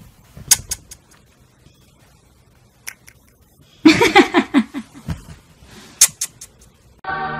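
A little girl's voice: one short, pitched vocal outburst of about a second, nearly four seconds in, amid sharp clicks before and after. Music starts near the end.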